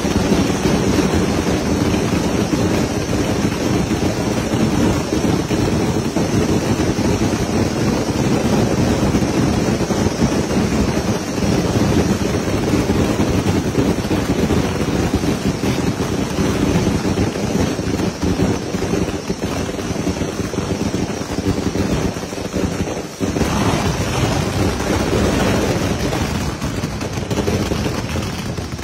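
Firecrackers and spark fountains going off in a dense, loud, unbroken crackle, with a brief dip a little over twenty seconds in.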